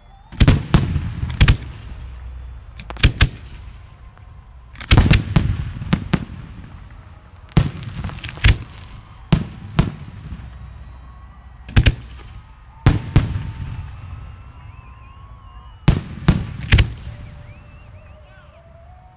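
Aerial fireworks shells bursting in a professional display: sharp, loud reports in clusters of two or three, every second or two, each followed by an echoing rumble.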